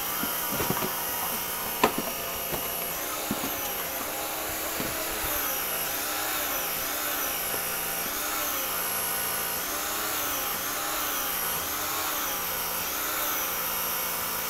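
Steady whirring of a running machine with a slow, regular wobble about every second and a half. A few light knocks in the first few seconds come from the evaporator cores being handled.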